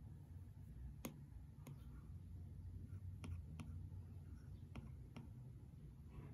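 Stylus tip tapping on a tablet's glass screen: about seven faint, sharp clicks at irregular intervals, the loudest about a second in, over a low steady hum.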